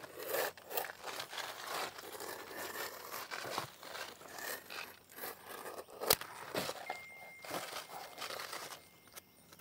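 Utility knife scoring and cutting asphalt roofing shingles, the blade scraping across the gritty surface, with the stiff shingles and their paper wrapper crinkling as they are handled. A sharp click about six seconds in.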